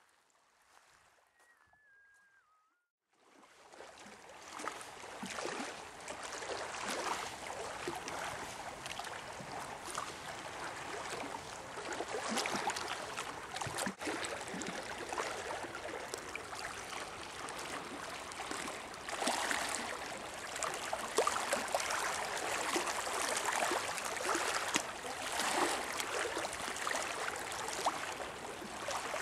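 After about three near-silent seconds, water sound cuts in suddenly: continuous gurgling and sloshing with many small splashes and bubble pops, rising and falling in level.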